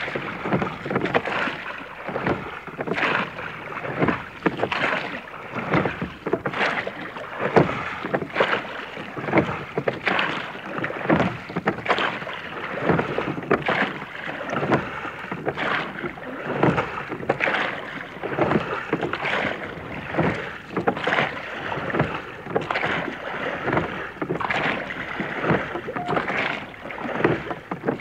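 Sea Scouts whaler rowed fairly fast with three pairs of oars: oar strokes knocking and splashing in a steady, regular rhythm.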